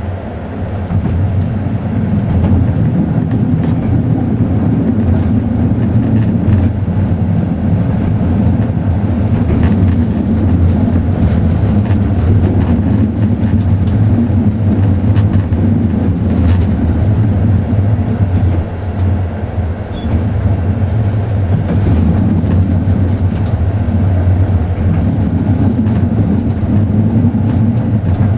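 Passenger train running along the line, heard from aboard a coach: a steady low rumble of wheels on the rails, with a few faint clicks.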